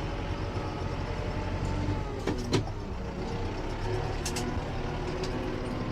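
Kubota M8540 tractor's diesel engine running steadily while it handles a red oak log. About two and a half seconds in there is a short squeak and a sharp knock, with a few light clicks later.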